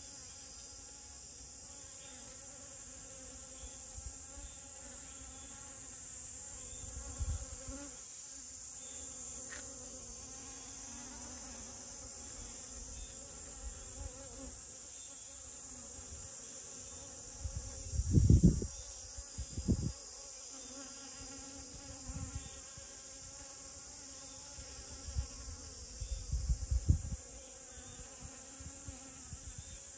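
Honeybee buzzing as it forages among rose moss flowers, a faint steady hum, over a steady high-pitched insect trill. A few low rumbles break in, the loudest a little past the middle.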